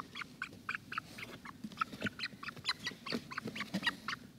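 A chicken giving short, high calls in quick succession, about four or five a second, from inside a cardboard box, with the faint rustle of the box being handled.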